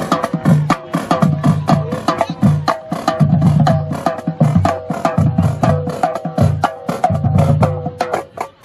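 Marching drumline playing a cadence: rapid snare drum strokes and stick clicks over tenor drums and groups of pitched bass drum notes. The playing thins out near the end.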